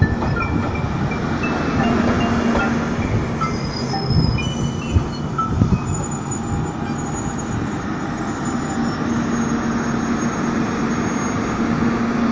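JR Shikoku 8000 series electric express train pulling into a station, with high squealing tones from brakes and wheels that shift in pitch over a low steady hum. A few knocks from the wheels come about five seconds in.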